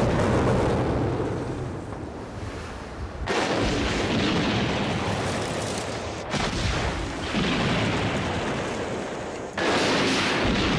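Pre-blast of small dynamite charges in drilled holes in reinforced concrete core walls, set off to weaken the cores before the main implosion. It opens on the rumble of a blast, with further sudden booms about three, six and a half, seven and a half and nine and a half seconds in, each trailing off into rumble.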